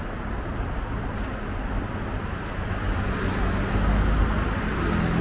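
City road traffic: a steady rush of passing cars, growing louder near the end.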